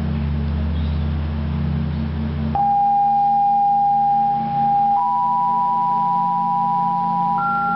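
Electronic drone music: a low steady hum cuts off about a third of the way in and a single pure sustained tone takes over. A second, higher tone joins about two-thirds of the way through, and a third, higher still, joins near the end, so the tones stack up into a chord.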